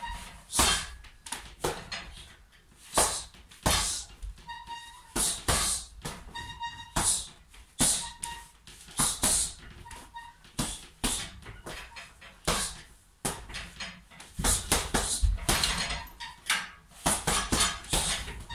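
Heavy punching bag being struck with punches and kicks: irregular sharp thuds, one or two a second with short pauses, denser near the end. A thin ringing tone recurs between some of the hits.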